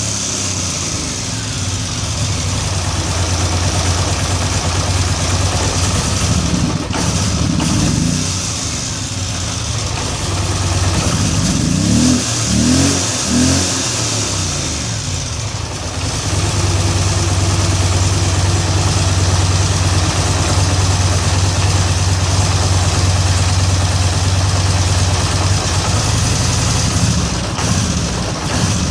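2013 Polaris Sportsman 850 XP HO ATV's parallel-twin engine idling, with brief throttle blips: one about seven seconds in, three quick ones around twelve to fourteen seconds, and one near the end. The idle is rough, which the owner links to a throttle-stuck fault code that a new TPS, throttle body and idle air control valve have not cured.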